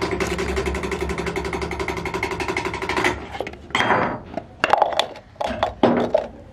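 A small machine running with a fast, even rattle over a steady hum, which stops about three seconds in. Irregular clicks and scrapes of small metal parts being worked by hand follow.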